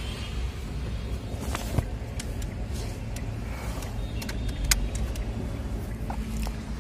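A vehicle on the move: a steady low rumble of engine and road noise, with a few sharp clicks.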